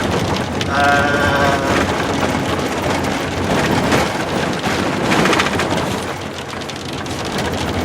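Inside a vehicle driving a rough, rocky dirt road: a steady rumble of tyres and road noise with constant rattles and jolts as the vehicle bounces. A brief high-pitched sound comes about a second in.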